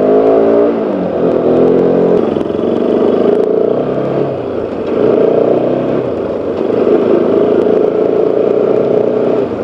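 Bajaj Pulsar RS200 motorcycle engine running while the bike is ridden, its note rising and falling as it speeds up and eases off in the first second or so, then steadier, under a constant rush of wind and road noise.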